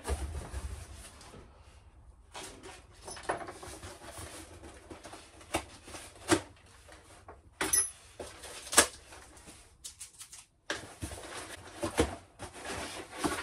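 A long cardboard parcel box being handled and opened: scattered rustling and scraping of cardboard with irregular sharp taps and knocks, the loudest about six and nine seconds in.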